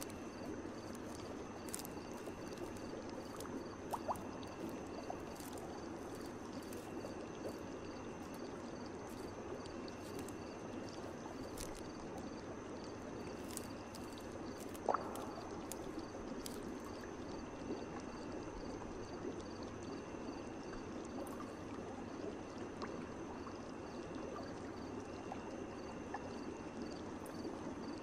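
Night ambience of gently running water, with insects chirping in a high, repeating pattern. A couple of single water drips plink, the loudest about halfway through.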